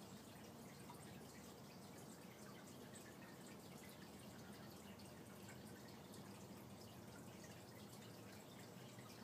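Near silence: faint, steady aquarium water trickling and bubbling, with scattered tiny drip-like ticks and a low hum underneath.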